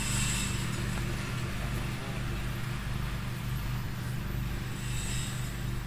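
A motor running steadily: a low, even hum with no change in pitch.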